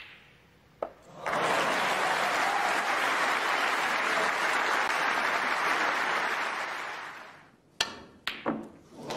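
Snooker balls clicking sharply, once at the start and again about a second in. An audience then applauds for about six seconds, fading away. Near the end come three more sharp clicks of cue and balls.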